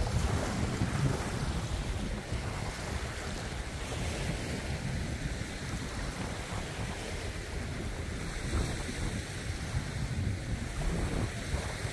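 Wind buffeting the microphone outdoors: a steady low rushing noise that swells and dips without letting up.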